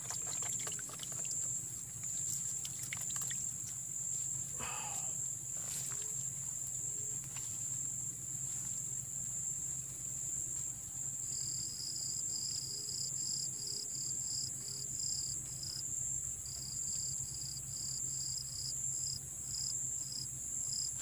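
Insects droning steadily at a high pitch in the grass. About halfway through, a second insect joins with short, regular chirps about twice a second.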